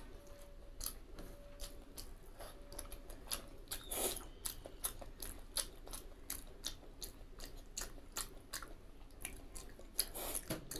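A person chewing a mouthful of rice and curry close to the microphone, with many irregular mouth clicks and a louder one about four seconds in.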